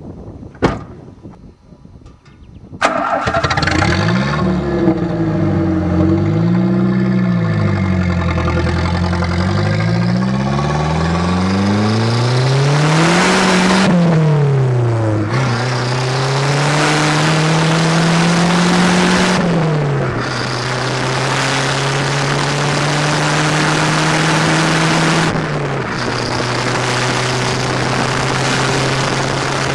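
A thump, then the Shelby Z Aries car's engine starts about three seconds in, heard right at its exhaust from under the rear. It is revved up and down several times, then the car pulls away, the exhaust note rising with speed and dropping back at two upshifts.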